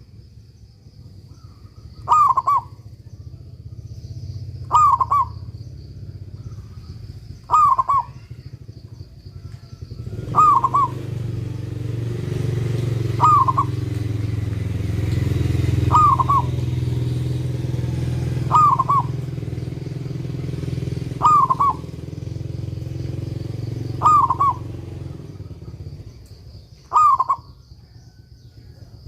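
Zebra dove (perkutut) cooing, ten short calls evenly spaced about every two and a half to three seconds. From about a third of the way in until near the end, a low engine rumble swells up under the calls and then fades away.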